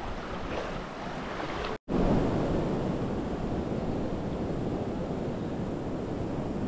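River water flowing, a steady even noise. It breaks off for a moment about two seconds in and comes back louder.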